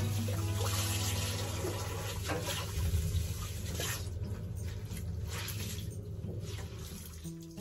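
Tap water running hard into a utility sink while a cloth is rinsed under the stream. About four seconds in, the flow eases off and gives way to separate splashes and drips as the cloth is squeezed out.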